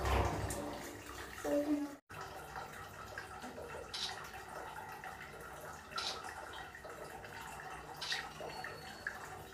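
Faint water trickling and dripping in a small tiled bathroom, with a short splash or drip about every two seconds. A dull thump comes right at the start, and the sound drops out briefly about two seconds in.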